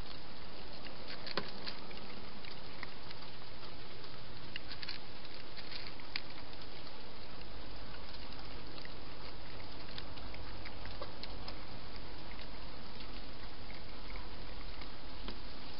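A cat eating from a feeding bowl: scattered faint clicks and crunches over a steady hiss.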